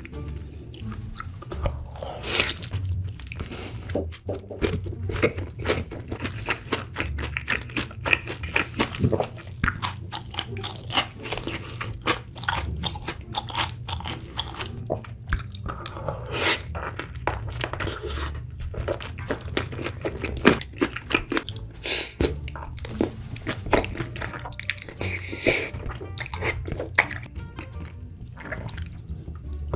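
Close-miked eating: crisp crunching bites and wet chewing of fried chicken and cheese-covered tteokbokki rice cakes, in irregular bursts throughout. Background music with a steady low bass underneath.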